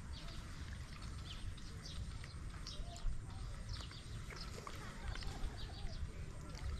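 Many short, high chirps of small animals, scattered and overlapping, over a low rumble of wind on the microphone.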